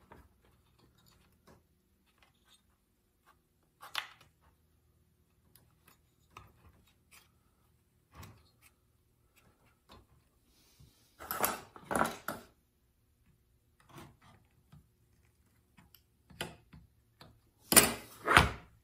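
Plastic handle and housing of a Homelite XL chainsaw being handled and pressed back onto the saw: scattered light clicks and rubbing, with two louder bursts of knocking and clatter about eleven seconds in and again near the end.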